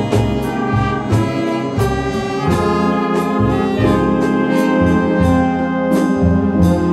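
Jazz big band playing: saxophone, trombone and trumpet sections sounding sustained chords over a bass line, with a steady beat of percussive strokes.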